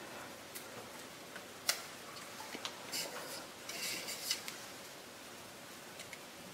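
Fingers picking through chopped rosemary in the plastic bowl of a Cuisinart mini food processor, taking out stray stems: light clicks and crisp rustling, with a sharper tap on the bowl about a second and a half in and a short run of rustling around three to four seconds in.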